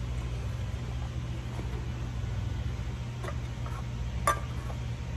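Metal can clinking against the can seamer's chuck as it is tugged at, a faint click and then a louder one about four seconds in, over a steady low hum.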